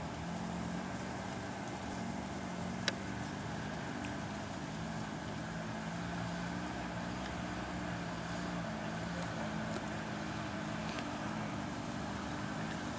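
Lifted Suzuki Samurai's four-cylinder engine running steadily, its pitch shifting slightly up and down as the 4x4 moves slowly over grass. One sharp click about three seconds in.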